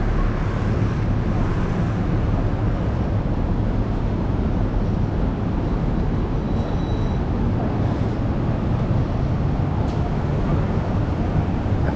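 Steady low rumble of city street traffic, with a constant low hum under it. A brief faint high tone sounds about halfway through.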